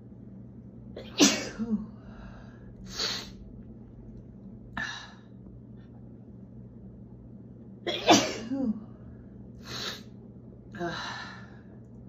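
A woman's allergy sneezes: two sharp sneezes, the first about a second in and the second about eight seconds in. Each is followed by a quick smaller burst, and quieter breaths come in between.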